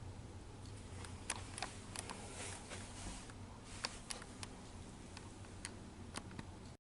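Faint, scattered clicks and light knocks with a brief rustle about two and a half seconds in, the sound of small objects and a cardboard box being handled and moved.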